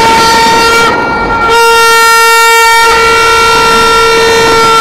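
A horn sounding one steady, piercing note, held on with only a brief dip about a second in, over a faint noisy background.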